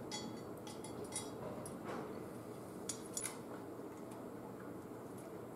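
Faint, scattered metallic clicks and taps as a solid cast differential cover is seated against a Ford 8.8 axle housing and its cover bolts are started by hand. The clicks fall within the first three and a half seconds.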